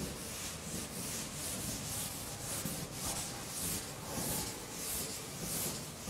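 Cloth wiping a chalkboard in quick back-and-forth strokes: a rhythmic rubbing swish about twice a second.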